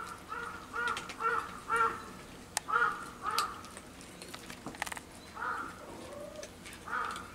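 A crow cawing: runs of short calls, three or four in quick succession, with pauses between the runs. A few sharp clicks fall between the calls.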